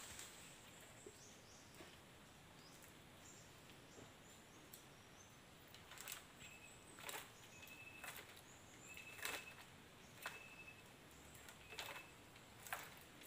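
Near silence: faint outdoor ambience with birds chirping, a short high note repeated about once a second in the second half. A few faint knocks fall about a second apart over the same stretch.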